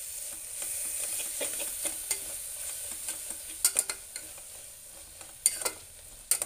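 Slotted metal spatula stirring and scraping a sizzling onion-tomato masala in a pressure cooker. The frying paste gives a steady sizzle, and the spatula knocks sharply against the pot a few times, loudest about three and a half and five and a half seconds in.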